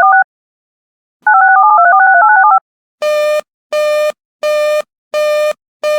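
Two rapid bursts of touch-tone (DTMF) digits closing an emergency alert broadcast, then about five evenly spaced buzzy electronic beeps, roughly one every three-quarters of a second, leading into the next alert.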